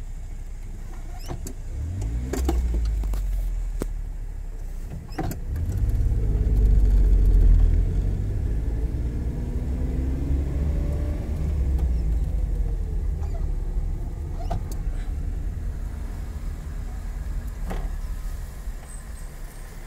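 Car engine and tyre rumble heard from inside the cabin as the car creeps forward, its pitch rising and falling with the throttle and loudest a few seconds in, with a few short clicks and knocks.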